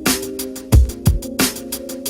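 Electronic background music with a steady beat: deep kick drums, quick hi-hat ticks and held synth chords.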